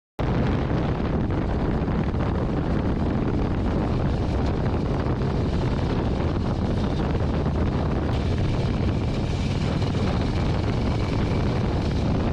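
Harley-Davidson Road King under way at road speed: a steady rush of wind over the microphone mixed with the engine and road noise. A faint steady whine joins about two-thirds of the way through.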